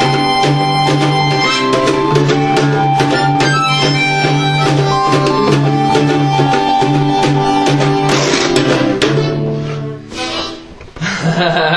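Instrumental background music with held notes over a steady beat; it drops away about ten seconds in.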